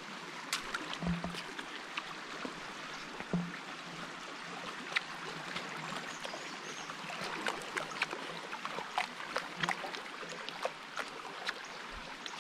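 Small woodland stream spilling over rocks: a steady rush of water with many small splashes.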